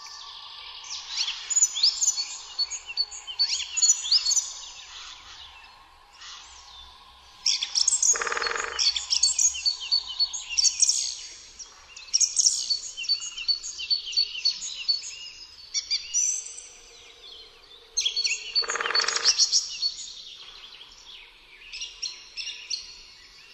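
Songbirds singing in repeated short phrases of falling trills, the song of the common chaffinch prominent among them. Twice a brief, lower rushing burst cuts through, about a third of the way in and again near the end.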